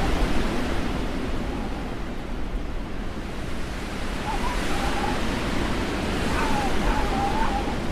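Blizzard wind blowing as a steady rush, with a thin whistling howl that dips and rises about halfway through and again near the end.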